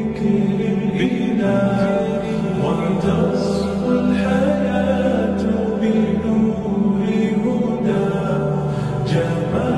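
Nasheed vocals: layered voices holding low sustained notes, with a melodic voice line bending in pitch above them.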